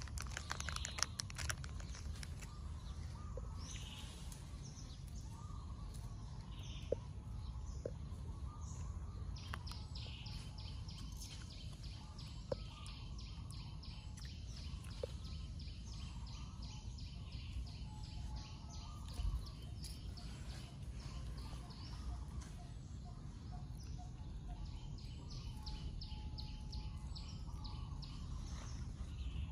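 Outdoor ambience with a steady low rumble. Through the middle, a bird chirps rapidly in a long run of quick high notes, and a few sharp clicks stand out.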